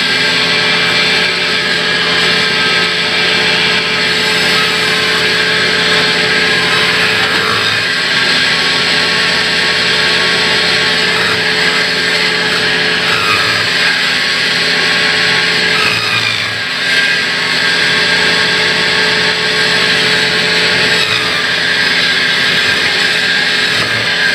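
Sawmill band saw running and cutting lengthwise through a large log: a steady hiss of the blade in the wood over the machine's constant hum, dipping briefly about sixteen seconds in.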